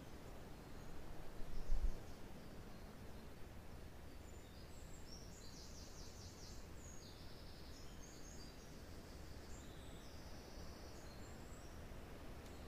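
Wind rumbling on the microphone, with one stronger gust about two seconds in. From a few seconds in, small forest songbirds give high-pitched chirps and short trills.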